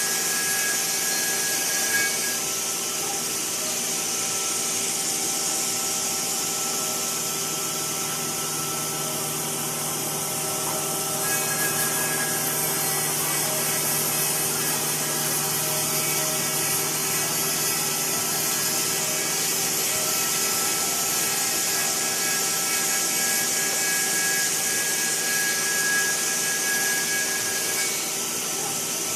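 HSD spindle on a five-axis wood CNC router running steadily and machining wood: a continuous whine over a hiss. One high tone drops out about two seconds in, comes back around eleven seconds, and stops near the end.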